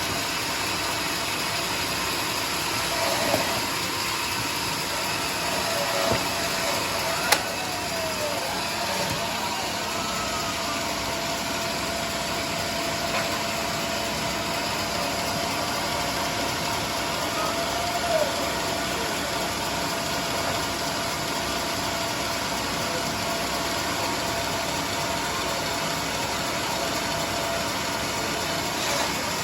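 Sawmill machinery running steadily, an even engine-like drone with a faint steady hum. A single sharp click sounds about seven seconds in.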